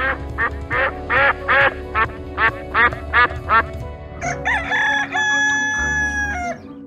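Duck sound effect quacking in a quick series, about two and a half quacks a second, then a rooster sound effect crowing once in one long call of about two and a half seconds that cuts off. Light background music plays underneath.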